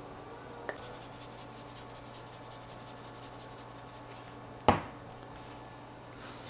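Spice shaker shaken over raw burger patties: a quick, even rattle of seasoning granules lasting about three and a half seconds. Then a single sharp knock, the loudest sound, as a shaker bottle is set down on the wooden countertop.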